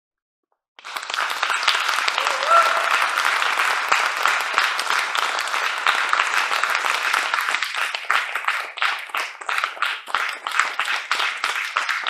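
Audience applauding, starting suddenly about a second in after silence, with one brief pitched call from the audience early in the applause. The applause thins out in the last few seconds into more separate, individual claps.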